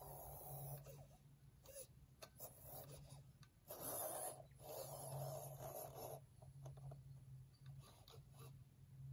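Faint low hum of an RC crawler's electric motor, coming and going with the throttle, with soft rustling and scraping close by that is loudest about four seconds in.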